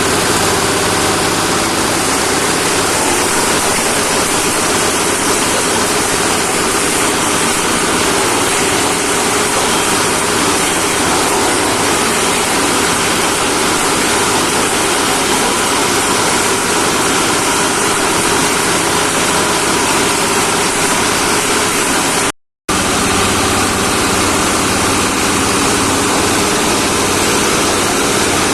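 A compost shredder for branches, twigs and organic waste running steadily, its motor humming under a constant loud rush. The sound drops out for a moment about three-quarters of the way through.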